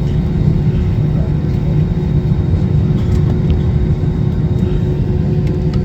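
Cabin noise inside an Airbus A320 taxiing: a steady low rumble from the engines at taxi power and the aircraft rolling, with a steady hum over it.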